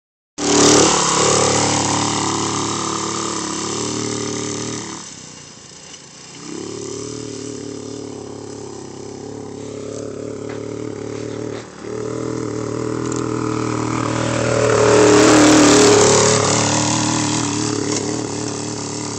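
Small off-road dune buggy engine running under throttle, loudest at the very start, then easing off about five seconds in. It picks up again and surges louder and rougher around fifteen seconds in, then settles.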